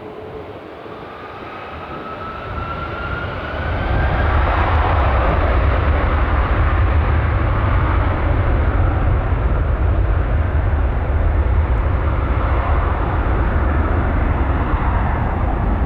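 Airbus A330-200 twin jet engines at take-off power. A rising whine in the first few seconds, then about four seconds in a loud, steady roar with a deep rumble as the airliner passes.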